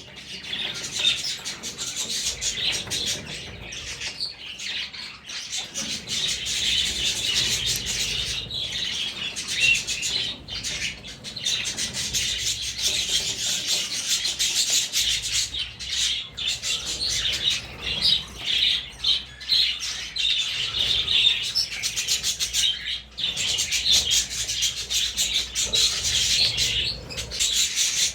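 A dense chorus of many birds chirping at once, a continuous busy chatter with a few brief lulls.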